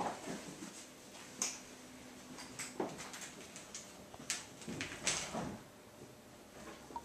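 Kittens playing and scampering on carpet: a scatter of light thumps, scuffs and knocks at irregular intervals.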